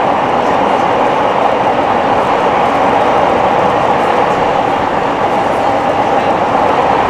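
Nagoya Municipal Subway 3050 series train running between stations, heard from inside the car: a steady, loud rumble of wheels on rail and running gear. The train's wheels have flat spots.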